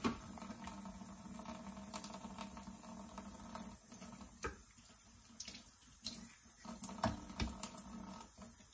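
Kitchen shears snipping raw pork chitterlings, with wet squishing as the slippery intestines are handled; a few faint scattered snips and clicks over a steady low hum.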